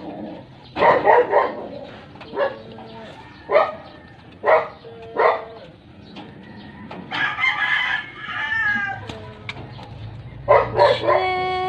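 A dog barks in a string of short barks through the first half. A rooster crows about seven seconds in with a wavering, falling call, and crows again near the end, finishing on a long held note.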